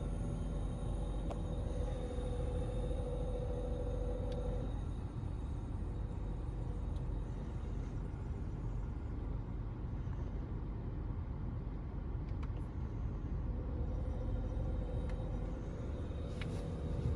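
Car air-conditioning system making a steady hum over the low rumble of a 1.4 TSI car on the move, heard in the cabin. The hum sounds for the first four seconds or so, drops away, and comes back near the end. The owner questions whether this AC sound is normal.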